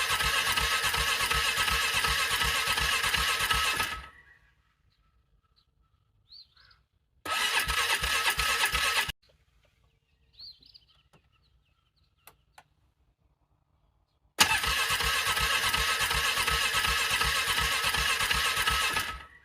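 A vehicle's engine being cranked on its starter in frigid cold without catching: three long bursts of cranking of about four, two and five seconds, each cut off abruptly. The engine is struggling to turn over in the cold. Faint chirps and a couple of clicks fall in the quiet gaps between bursts.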